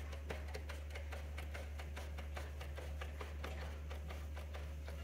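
Rewind-shaft tension knob on a label finisher being turned by hand, giving a run of faint, quick, fairly even clicks over a steady low hum.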